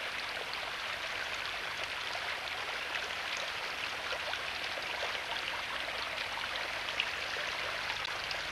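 Water running and splashing steadily over the rocks of an ornamental rockery water feature, with small drips and splashes.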